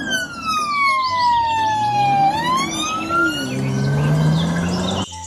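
Police car siren on a slow wail, its pitch sliding down and then back up, while the car's engine revs up as it pulls away. The sound cuts off abruptly near the end.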